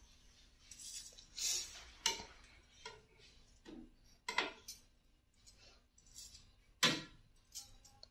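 Metal kitchen tongs clicking and tapping against a frying pan while slices of bread are turned: a few sharp separate clicks spread over several seconds, the loudest near the end, with some short scrapes.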